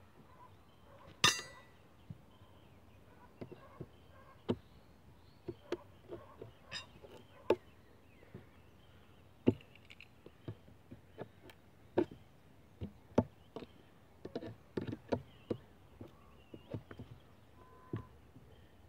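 Steel nail bar and claw hammer knocking and prying nails out of old wooden posts: irregular sharp knocks and clinks, with one louder ringing metallic clang about a second in.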